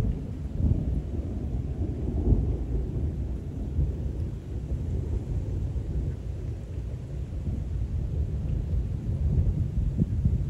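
Rolling thunder: a long, low rumble that swells and fades without a sharp crack.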